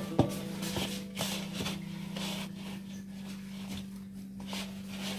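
Hand kneading crumbly cookie dough in a stainless steel bowl: soft rubbing with a few light knocks against the metal, strongest near the start. Quiet background music with held notes plays under it.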